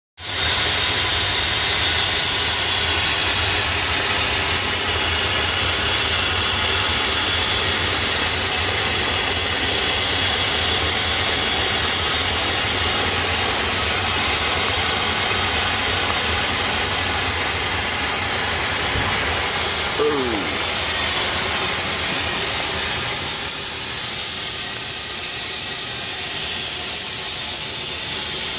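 Steam hose blasting steam into a frozen tanker trailer's valve box to thaw the valve: a loud, steady hiss. A brief falling squeal comes about twenty seconds in.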